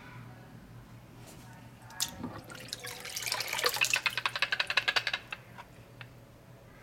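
Water splashing and pouring back into a stainless-steel kitchen sink as pieces of a plastic toy Titanic model are lifted out of it, a dense run of splashes and drips lasting about two and a half seconds from midway through.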